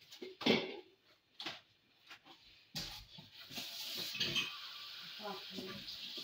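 Kitchen tap turned on about three seconds in, water running steadily into a stainless-steel sink as hands are washed under it. Short knocks of a knife on a wooden cutting board as a tomato is sliced.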